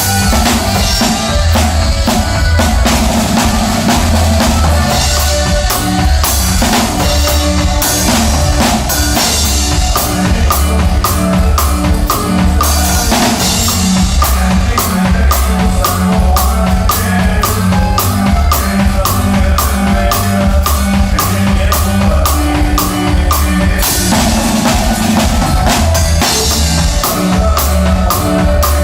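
A live band playing a song at a sound check, with a drum kit keeping a steady beat of bass drum and snare over a heavy bass line.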